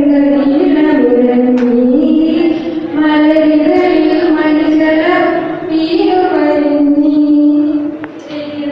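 A woman singing solo into a microphone with no accompaniment: a slow melody of long held notes, with short breaths between phrases about two and a half seconds in and near the end.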